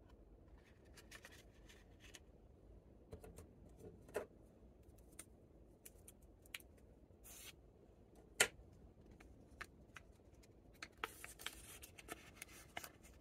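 Paper and foil candy wrappers handled by hand: faint rustling and crinkling with scattered small clicks, one sharp click about eight seconds in and a run of crinkles near the end.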